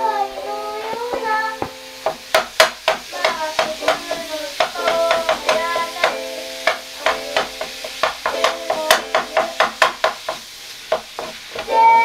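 Rapid sharp clicks of chopsticks against a bowl while stirring, about three a second, over someone singing with an instrument playing in the room.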